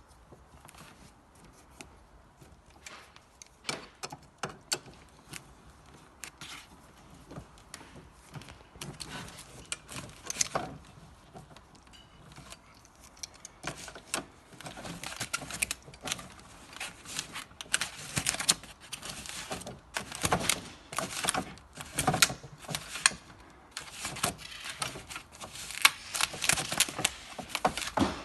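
Metal clicking, clinking and rattling of tools and parts as a spanner works the bicycle's headset nut loose and the fork hardware is handled. Sparse at first, getting busier from about halfway through.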